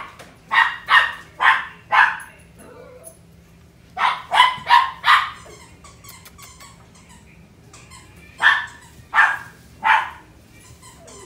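Frenchton puppy barking: short high-pitched yaps in three bouts of three to five, each about half a second apart.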